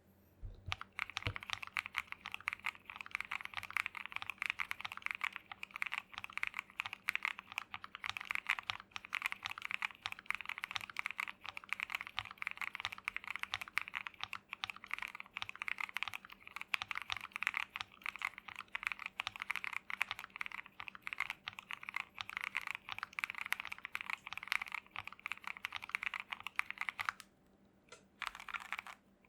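Modded Keychron Q1 aluminium mechanical keyboard with Gateron Milky Yellow Pro linear switches being typed on steadily in fast, dense keystrokes. The typing pauses briefly near the end, then starts again.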